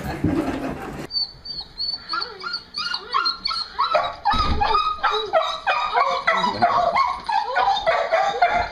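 A beagle-type dog whining and yelping in excitement, a rapid string of short high calls that rise and fall, starting about two seconds in and going on almost without pause: an excited greeting of its returning owner.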